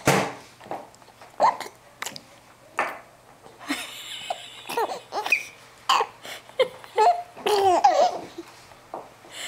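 A small child hiccupping again and again, about once a second, with short giggles between and through the hiccups.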